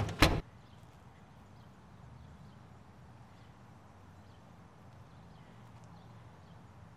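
A wooden front door shuts with two quick loud bangs at the very start, the second the louder. Then faint, steady outdoor ambience with a low hum.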